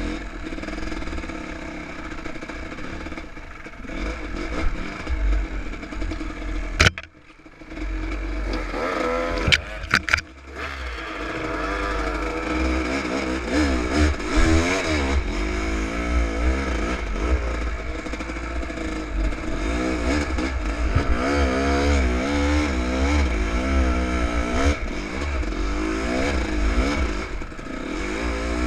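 Enduro dirt-bike engine revving up and down in repeated waves, with sharp knocks about seven and ten seconds in.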